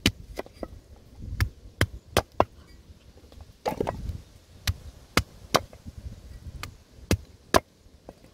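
Cleaver slicing peeled taro on a round wooden chopping block: about fifteen sharp knocks of the blade meeting the block at an irregular pace, a few of them heavier, duller thuds.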